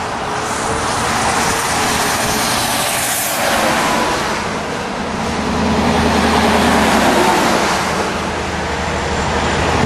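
Freeway traffic rushing past, with a tractor-trailer passing close by a few seconds in. Its tyres and engine leave a low rumble that swells for several seconds before easing off.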